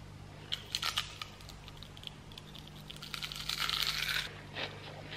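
Crunching bites into the crust of a crispy deep-fried chicken wing: a quick run of sharp crackles about half a second to a second in, then a longer crunchy stretch around three to four seconds in and a few more crackles near the end. The crackle is the sign of a very crispy, double-fried coating.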